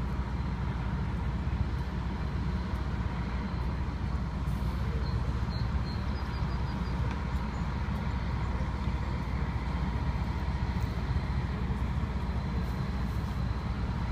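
Steady low outdoor rumble with a faint constant whine, no single event standing out.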